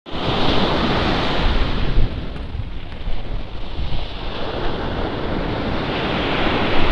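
Sea waves washing onto a beach, with wind rumbling on the microphone. The surge is loudest over the first two seconds, then eases.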